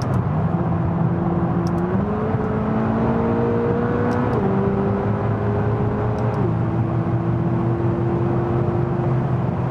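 McLaren 570GT's twin-turbo V8 running at speed, heard from inside the car over steady tyre and road noise. Its pitch jumps up about two seconds in and drops back in two steps near the middle, as the gearbox changes gear.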